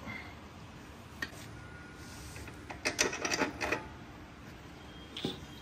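Metallic clicks and rattles of a pipe wrench working on a chrome exhaust bend pipe as it is fitted: a single click about a second in, a burst of clatter around three seconds in, and another click near the end.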